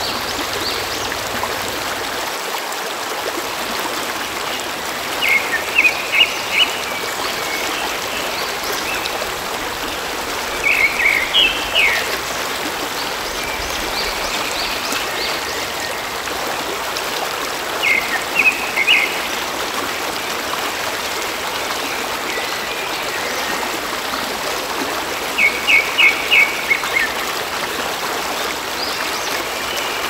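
Shallow stream flowing over rocks with a steady rushing. A small bird chirps four times, each a quick run of several sharp high notes that stands out above the water.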